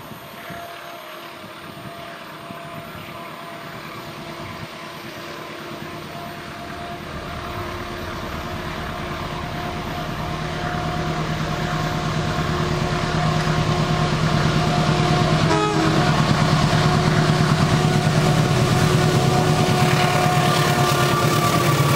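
Diesel-electric locomotive hauling a passenger train, approaching and passing at speed: its engine runs steadily and grows louder throughout, and its tones drop slightly in pitch as it goes by near the end.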